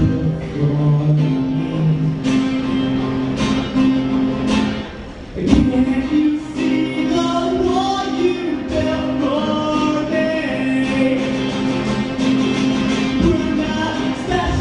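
A young man singing with a strummed guitar. The playing drops away briefly about five seconds in and then comes back.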